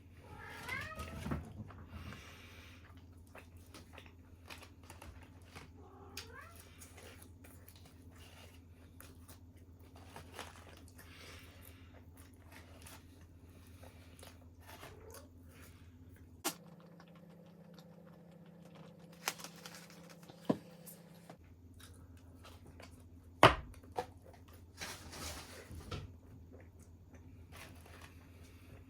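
An animal, most like a pet cat, giving short wavering cries about a second in and again around six seconds, among scattered sharp clicks and taps, the loudest near the end.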